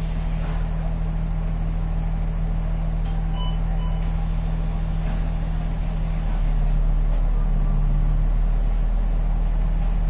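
Bus engine idling steadily while the bus stands still, getting a little louder about six seconds in.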